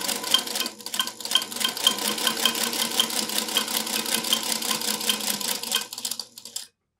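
Singer Featherweight 221 sewing machine stitching at a steady speed: a fast, even clatter of the needle mechanism over the motor's whirring. Little dings come from the thread spool rattling on its spool pin. The machine stops near the end.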